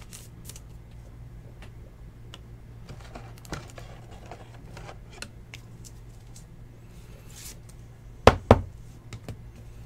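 Hands handling a trading card and sliding it into a clear plastic card holder: light clicks and plastic rustling over a steady low hum, with two sharp knocks in quick succession near the end.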